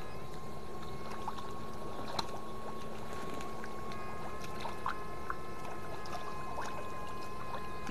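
Electric fish-shocker running with its probes in the water: a steady high-pitched whine over a low hum. A set of higher tones joins about four seconds in, with a few sharp ticks.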